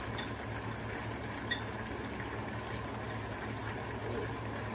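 Chicken drumsticks frying in a skillet of hot oil, a steady sizzle, with a couple of faint light clicks.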